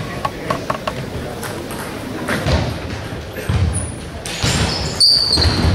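Table tennis ball clicking in quick succession off bat and table, followed by several low thuds and a short high squeak about five seconds in, over the chatter of a large sports hall.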